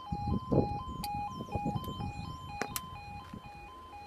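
British level crossing yodel alarm sounding, two tones alternating quickly, as the road barriers lower. A few sharp clicks come through the middle.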